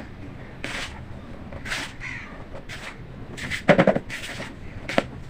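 Chunks of baking soda being crumbled and crushed: separate soft crunches about once a second, a loud burst of rapid crackles about two-thirds through, and a single sharp snap near the end.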